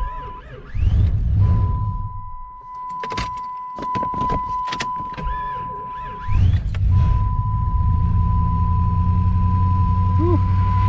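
Jeep Grand Cherokee 318 V8 being started after sitting for months. It catches briefly about a second in and falls away, then about six seconds in it fires and keeps running with a rough idle. A steady high warning tone sounds through it, with short breaks.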